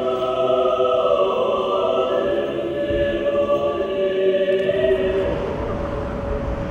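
Choir singing long held chords. Near the end the singing fades under a low rumbling noise.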